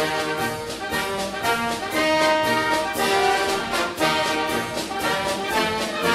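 Orchestral background music led by brass, with held notes over a steady beat.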